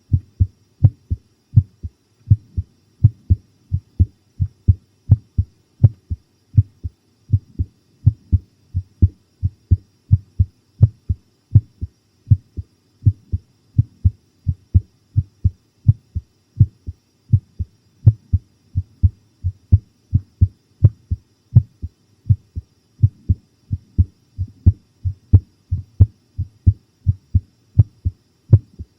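A person's heartbeat recorded close up, pounding: a steady, even rhythm of short low thumps in lub-dub pairs.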